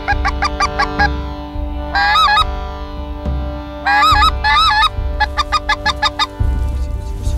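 Geese honking in groups of calls: a quick run of short honks, then two longer wavering calls, then another run of short honks. Steady background music plays underneath.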